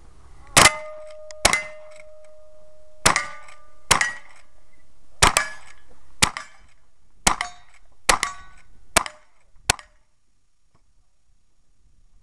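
Lever-action rifle firing ten shots about a second apart, several followed by a short ringing tone, the ring of steel targets being hit. The shooting stops about ten seconds in.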